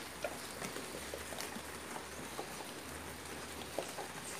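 Steady rain falling, an even hiss, with scattered light ticks through it.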